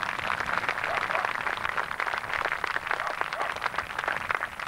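Outdoor crowd applauding: a dense, steady patter of many hands clapping.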